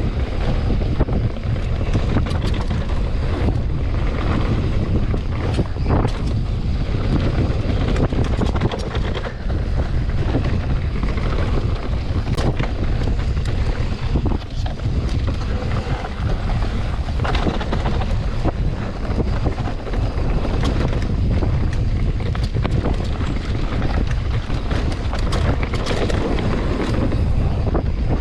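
Wind rushing over the microphone of a mountain biker riding down a bike-park trail, loud and steady, with tyre noise and frequent short knocks and rattles from the bike over the bumps.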